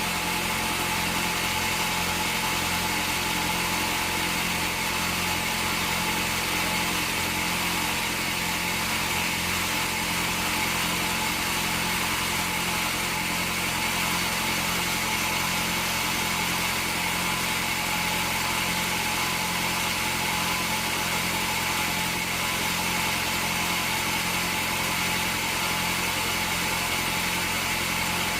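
Bandsaw sawmill machinery running steadily, a continuous motor hum with a hiss on top that holds the same level throughout.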